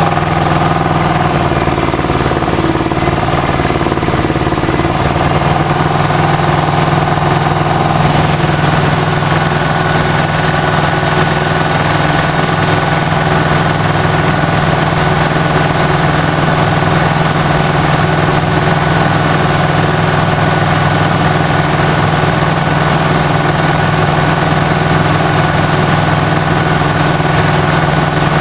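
Aquatic weed harvester's engine running steadily at a constant speed. A thin high whine joins in about eight seconds in.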